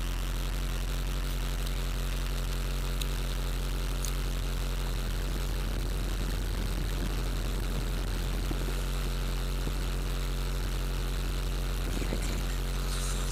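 Car engine idling steadily, heard from inside the cabin: a constant low drone, with faint rustling about halfway through and again near the end.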